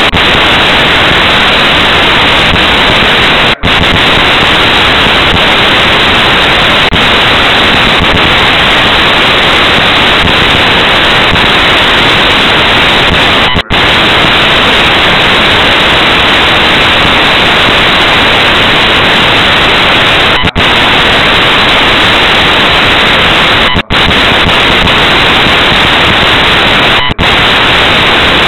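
Loud, steady static hiss from a low-quality recorder's audio, drowning out everything else, with five very brief dropouts spread through it.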